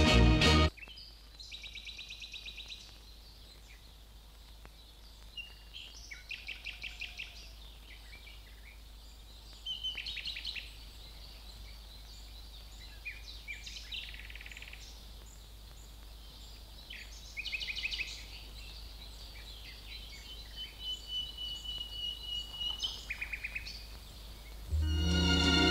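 Songbirds singing: a string of short trilled phrases and chirps, one held whistled note among them, over a steady low hum. Music cuts off just after the start and comes back near the end.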